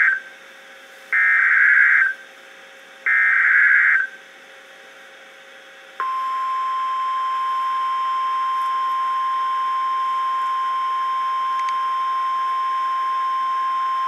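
NOAA Weather Radio Emergency Alert System signal through a Midland weather radio's speaker. The tail of one SAME digital header burst is followed by two more buzzy data bursts, each about a second long. After a pause, the steady 1050 Hz warning alarm tone starts about six seconds in and holds, signalling that a flash flood warning follows.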